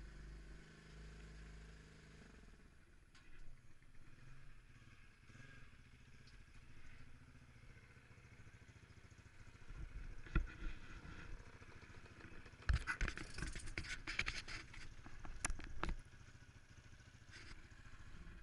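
Motorcycle engine running for the first couple of seconds, then fading away; about two-thirds of the way in comes a few seconds of dense clattering and scraping knocks.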